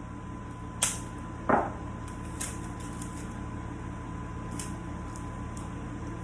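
Two short knocks about a second in, the second a louder, duller thud, over a steady low hum with a faint constant whine.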